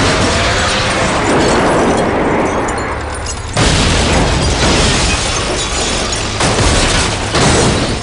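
Loud crashing and rumbling of cars flipping and rolling over, edited from film soundtracks, with a sudden cut to a new crash about three and a half seconds in.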